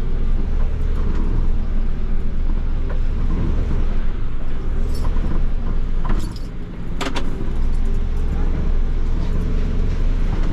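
Mercedes-Benz Unimog U530's diesel engine running steadily, heard from inside the cab, with a couple of sharp clicks or rattles about six and seven seconds in.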